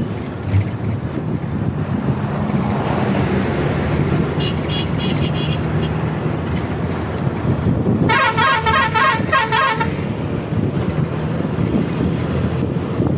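Steady engine and road drone heard from inside a moving bus, with a horn sounding a quick run of changing notes for about two seconds, about eight seconds in. A fainter horn beeps briefly about four seconds in.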